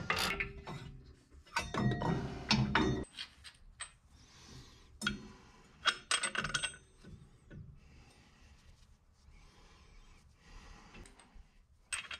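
Metal hand tools and bolt hardware clicking and clinking as nuts are run onto a truck's upper control arm pivot bolts. A busy run of clicking and rattling fills the first three seconds, then scattered single clicks and clinks follow, with a sharp pair near the end.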